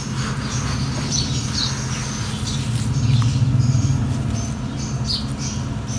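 Puddle of water fizzing and ticking with small air bubbles as it soaks into crumbled dry soil, with short high chirp-like pops scattered through. A steady low hum runs underneath.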